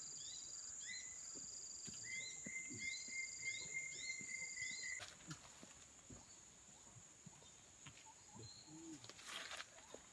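Faint tropical rainforest ambience: a steady high insect whine, with a row of short rising chirps and a held steady call over it that stop abruptly about five seconds in. After that, only the insect whine and a few faint knocks remain.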